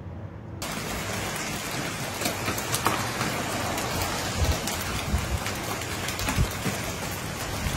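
Heavy storm rain pouring onto pavement and lawn, cutting in suddenly about half a second in as a dense, steady hiss full of sharp ticks from drops striking hard surfaces.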